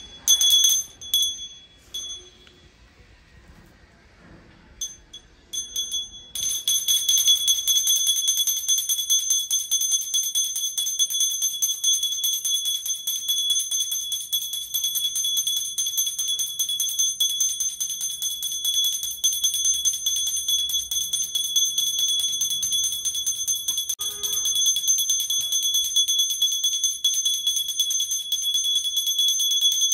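Brass puja hand bell (ghanta) rung rapidly, a high steady ring. A few separate strikes at first, then continuous ringing from about six seconds in.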